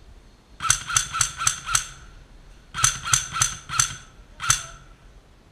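Airsoft gun fired in quick single shots: two strings of five sharp, ringing cracks at about four a second, the second string starting near the middle.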